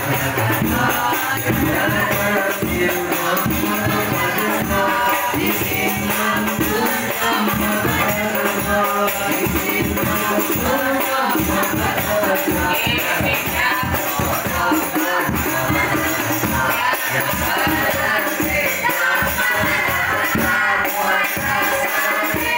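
Boys' voices singing together in unison, accompanied by rebana frame drums beaten in a quick, steady rhythm and a large bass drum; a group hadrah-style rehearsal of Islamic devotional songs.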